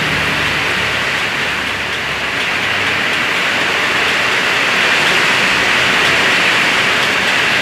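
Heavy rain pouring down in strong wind, a steady loud hiss, with a low rumble in the first couple of seconds.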